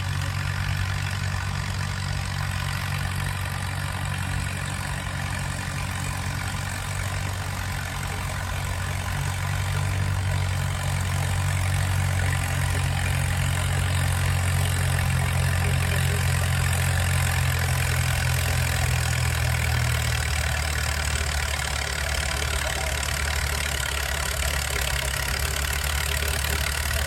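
Tractor engine running steadily near idle, a little louder from about ten seconds in, its note changing about twenty seconds in.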